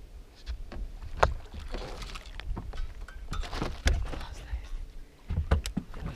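A bass hooked on a skirted jig being played at the side of a bass boat: irregular water splashing with scattered sharp clicks and knocks, and a few heavier low thumps, the strongest about 4 seconds in and again near the end.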